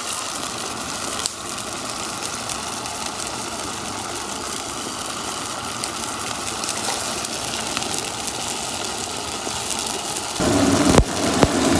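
Potato cubes frying in an onion-tomato masala in a steel pan, a steady sizzling hiss. Near the end it grows louder and fuller, with a knock.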